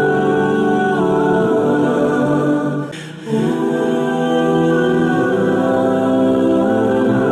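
Islamic devotional a cappella vocal music: layered voices holding long, sustained notes, with a brief drop about three seconds in before the voices come back.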